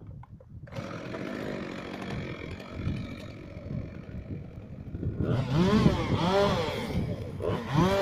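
Two-stroke chainsaw engine running, blipped up and down in quick throttle revs about five seconds in, three times in a row, then once more near the end.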